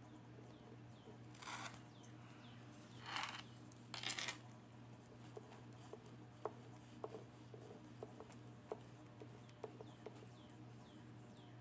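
A hand rubbing the plastic cover film of a diamond painting canvas in three short strokes to work out an air bubble, followed by a scatter of light clicks and taps from fingers on the canvas.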